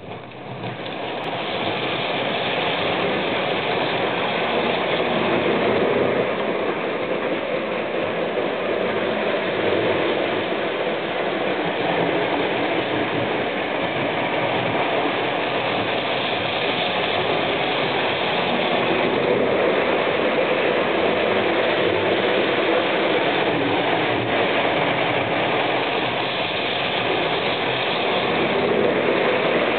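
Model LNER Class A4 locomotive with a rake of coaches running on Hornby Dublo three-rail track: the electric motor and gears whirring and the wheels rolling along the rails, starting up abruptly at the beginning and then running steadily, a little louder as the train passes close near the end.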